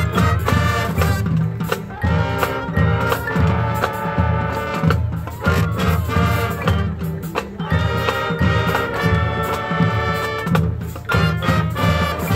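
Marching band playing a field show: brass sections sounding held chords and a melody over driving drumline percussion.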